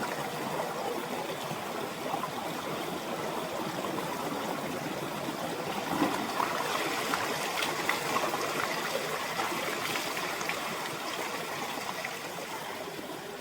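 Small mountain stream running and splashing steadily, with a few brief sharper splashes around the middle.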